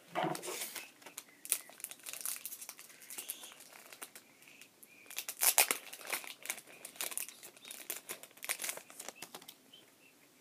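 Foil wrapper of a Pokémon booster pack crinkling in the hands, in a run of irregular crackles.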